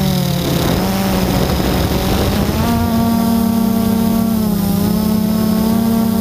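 FPV drone's electric motors and propellers whining steadily up close. The pitch wavers and breaks up into a rougher sound for about two seconds, then settles again slightly higher.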